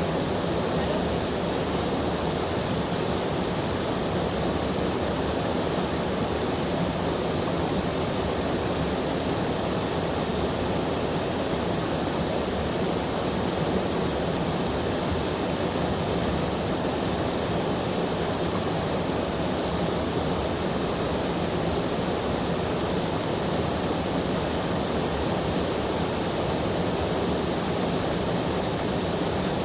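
Swollen river rushing over its bed: a steady, full rush of fast-flowing water.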